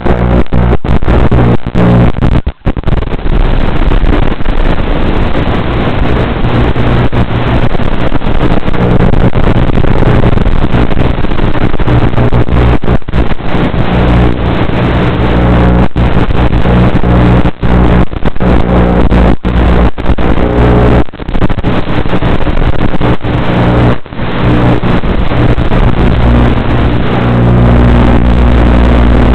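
FPV quadcopter's electric motors and propellers running, heard loud and distorted as a steady hum through the drone's onboard camera audio, with many brief dropouts.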